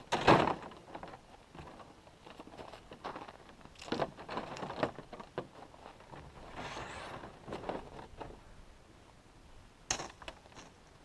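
A plastic sled set down on packed snow with a loud thud, followed by scattered knocks, scraping and rustling as a backpack and poles are handled and loaded onto it, with a sharp click near the end.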